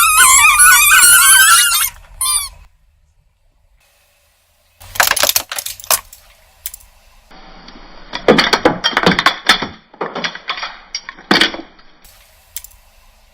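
A loud squeal that wavers up and down in pitch for about two seconds, then, after a pause, scattered crackling and popping as objects are crushed and burst.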